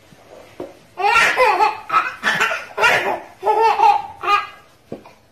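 Baby laughing in a string of repeated bursts, starting about a second in and lasting some three seconds, with a short knock just before the end.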